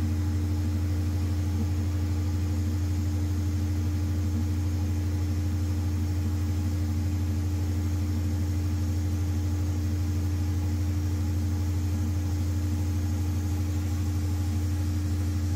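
Large natural gas engine generator running steadily: a constant low drone with a steady higher hum above it.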